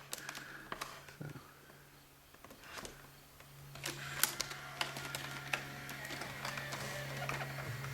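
The 1986 Magnavox VHS camcorder's tape mechanism starting playback after its play button is pressed: a steady low hum with small mechanical clicks, which get busier about three and a half seconds in.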